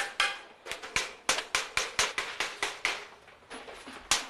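Rapid hammer blows on galvanized sheet metal being shaped into a stove casing, about six strikes a second, each with a short metallic ring. The strikes stop briefly about half a second in and again for about a second near the end.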